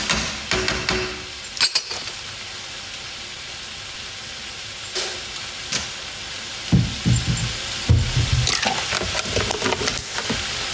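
Meat and vegetables sizzling in a frying pan on the stove, with a utensil scraping and clicking against the pan in the first two seconds. The sizzle then carries on steadily, and a few dull knocks come about seven seconds in.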